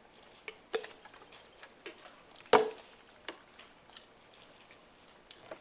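Butter knife spreading mayonnaise on a sesame seed bun: scattered soft scrapes and small clicks, with a sharper tap about two and a half seconds in.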